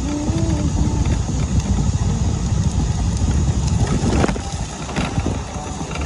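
Invacare TDX SP2 power wheelchair rolling fast over rough asphalt: a dense, steady rumble of wheels on the road with scattered small knocks.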